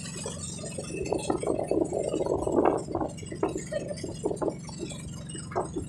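Outrigger boat's engine running with a steady low drone while it is under way, under irregular splashes of water against the hull and outrigger floats that are thickest about two to three seconds in, with wind on the microphone.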